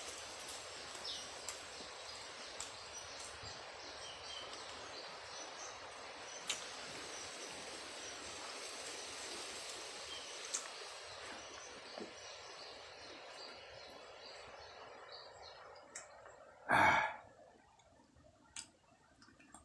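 Outdoor forest ambience: a steady hiss with faint bird chirps and a few small sharp clicks, the hiss fading past the middle. One short, loud sound comes near the end.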